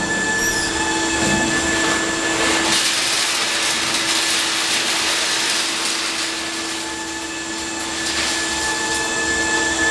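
Optical colour sorting machine for nuts running, a steady machine hum with a thin high whine. A louder rushing noise swells about three seconds in, lasts a few seconds, and comes back briefly near the end.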